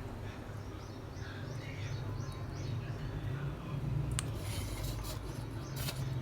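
Pet parrot making short, soft chirps and chatter over a steady low hum, with a single sharp click about four seconds in.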